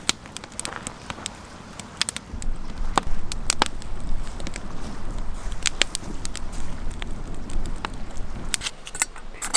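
Campfire crackling, with irregular sharp pops over a low rumble.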